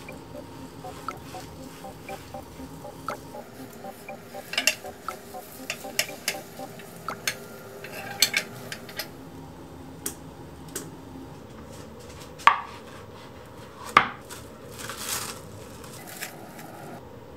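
Silicone spatula and a rectangular tamagoyaki pan clattering and tapping while a rolled omelette is pushed and turned in the pan: scattered light clicks, with two louder knocks about twelve and fourteen seconds in.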